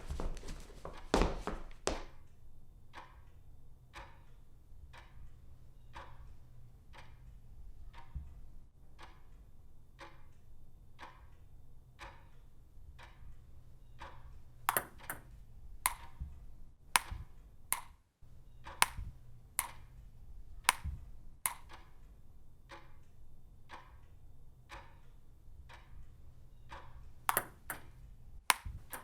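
A few louder knocks in the first two seconds, then sharp ticks at a steady pace of about two a second, like a ticking clock, with some brighter, louder pinging clicks mixed in from about halfway through.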